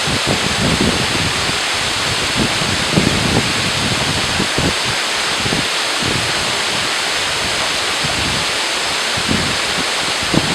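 Waterfall: a steady, even rush of falling water, with intermittent low buffeting of wind on the microphone.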